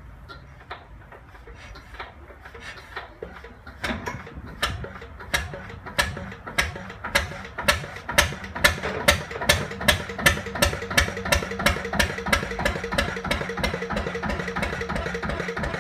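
Lister CS 6/1 single-cylinder water-cooled diesel being hand-started: faint quickening clicks while it is cranked over, then it catches about four seconds in with loud, sharp firing beats that come quicker as it picks up speed and settle into a steady running rhythm.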